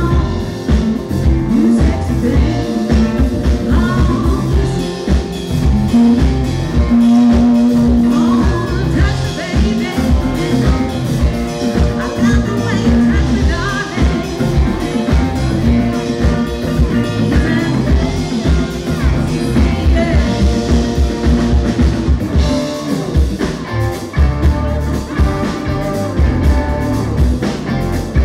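Live rock band playing, with women's voices singing over electric guitar, bass and drums keeping a steady beat.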